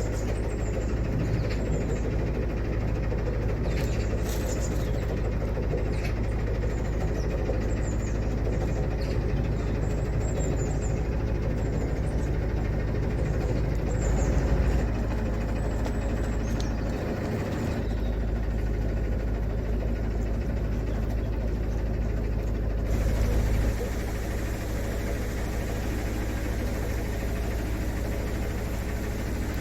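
Narrowboat's diesel engine running steadily under way, a continuous low hum that eases slightly about three-quarters of the way through.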